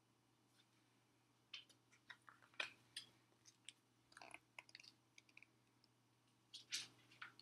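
Faint scattered clicks and rustles of a picture book being handled and its page turned, with a few sharper taps partway through and near the end.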